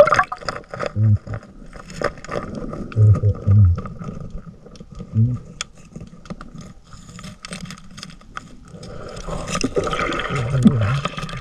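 Muffled underwater sound picked up by a camera held below the surface. Low thumps come about a second, three and five seconds in, and a louder wash of water builds near the end.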